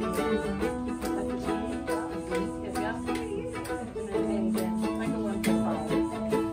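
A ukulele and a mandolin-style instrument being plucked and strummed while they are tuned to each other on an A note. Notes ring out steadily, and a couple of seconds in a string's pitch slides as it is adjusted, settling back onto a steady note about four seconds in.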